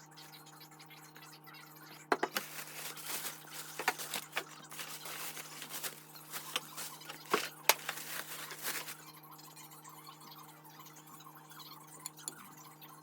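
Kitchenware being unpacked and handled: a run of light clicks, knocks and scrapes from about two seconds in to about nine seconds in, over a steady low hum.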